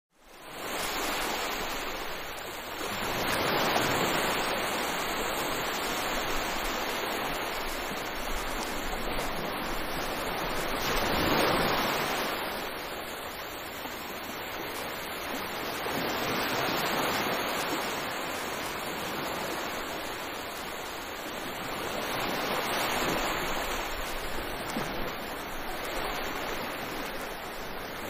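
Mediterranean surf: waves breaking and washing up the beach, a steady wash that swells and fades every six seconds or so.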